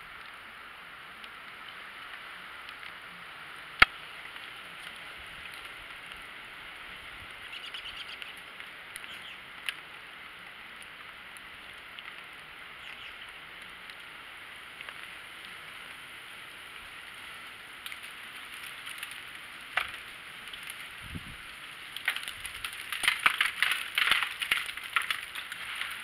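Steady outdoor hiss with a single sharp click about four seconds in, then a run of crunching footsteps in snow near the end.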